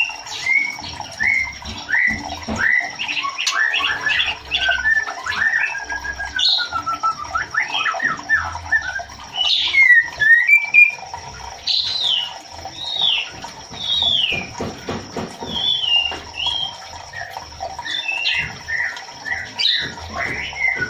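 Female white-rumped shama (murai batu) calling: a busy run of short chirps, whistled up-and-down slurs and harsher squawky notes, the call used to bring a male into breeding condition.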